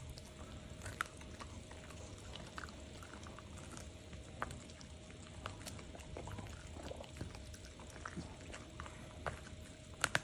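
A Shiba Inu gnawing an ear of corn: irregular crunches and clicks as kernels break between its teeth, with two sharper crunches near the end. A faint steady hum sits behind.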